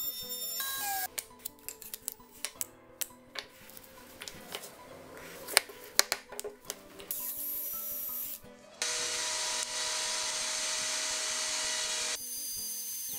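Woodworking power tool sounds: a router whining, cutting off under a second in, then a run of sharp clicks and knocks, and from about nine seconds in a power tool running steadily.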